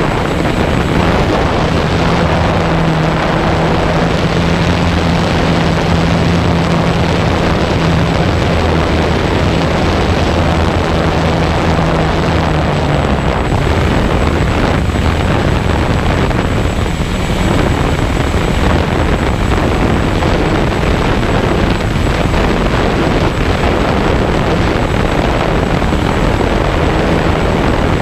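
Walkera QR X350 Pro quadcopter's four brushless motors and propellers running in flight, heard from the camera carried on the drone itself: a loud, steady buzzing drone. Its low hum holds a steady pitch for about the first half, then wavers as the drone manoeuvres.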